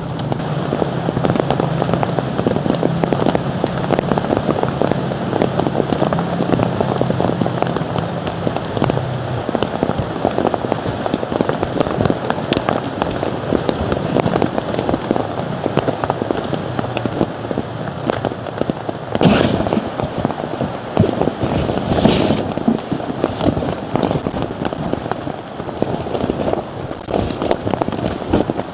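Heavy rain pattering steadily and densely on a surface. A low steady hum underneath stops about nine seconds in, and two short, sharp noises cut through about three seconds apart in the last third.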